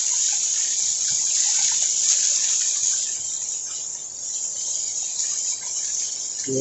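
Small waterfall with water rushing and splashing in a steady, hissing noise, easing slightly midway.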